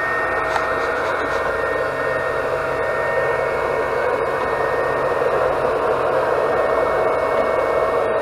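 Anycubic Chiron 3D printer running mid-print: a steady fan hiss with constant whining tones, unchanging throughout.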